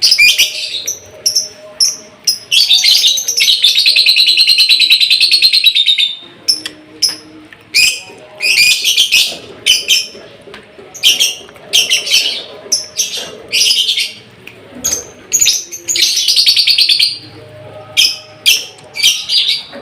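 Lovebird singing in loud, high-pitched chirps, with one long rapid trill lasting about three and a half seconds a couple of seconds in, then many short chirp bursts. The bird is in moult.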